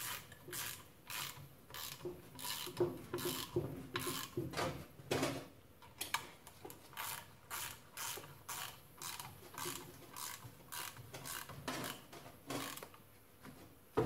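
Small socket ratchet clicking in quick back-and-forth strokes, about two a second, as rear sprocket nuts are run down evenly to seat the sprocket before final torquing. The strokes stop briefly near the end.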